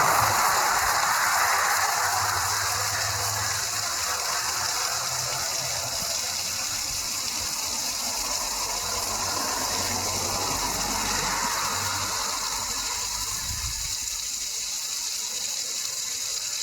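Roadside mountain waterfall rushing steadily, running full after heavy rain. Road traffic passes as well, loudest in the first few seconds, with another swell around ten to twelve seconds in.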